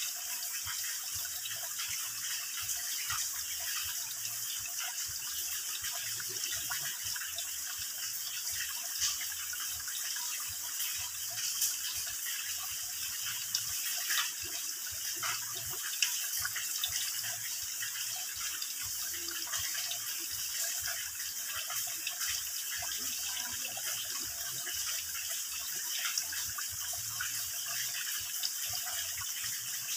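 Water trickling and dripping in thin streams from a mossy rock overhang into a shallow pool: a steady splashing, with a few louder single drops now and then.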